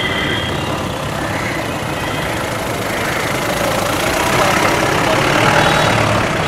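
Mahindra Bolero police jeep driving slowly out of a gate and past close by, its engine running and growing louder as it draws level, loudest about five seconds in.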